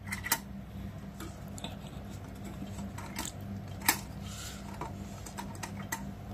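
Scattered light clicks and taps of fingers working a wire back into a rice cooker's plastic housing, the sharpest click a little before four seconds in, over a steady low hum.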